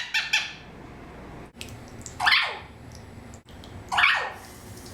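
Male Eclectus parrot calling: a few short calls right at the start, then two loud, similar calls about two seconds apart, each dropping in pitch at the end.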